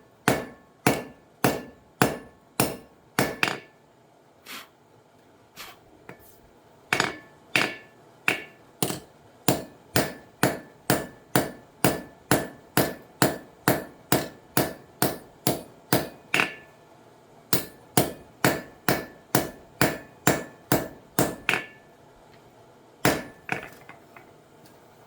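Hammer blows on an anvil, forging a titanium spoon: sharp, evenly paced strikes about two a second, each with a short ring. There is a pause with a few light taps a few seconds in, then a long steady run and two last blows near the end.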